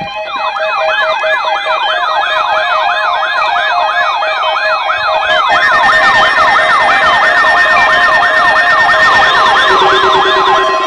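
Several electronic sirens and alarm tones sounding together: a fast, repeating siren wail, about three rises a second, over steady alarm tones, with more steady tones joining about halfway through and again near the end.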